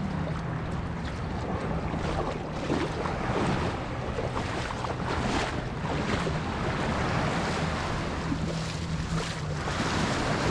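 A small watercraft's engine running steadily on open water, with water splashing against the hull and wind buffeting the microphone.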